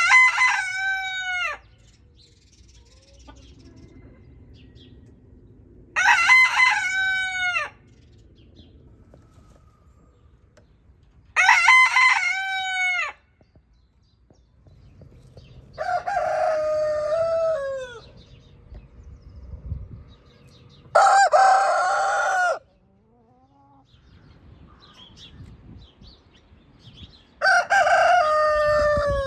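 Roosters crowing: six loud cock-a-doodle-doos about five seconds apart, each lasting one to two seconds. The first three come from a Barnevelder bantam rooster; the last, near the end, comes from a Light Sundheimer rooster, with a lower, fuller crow.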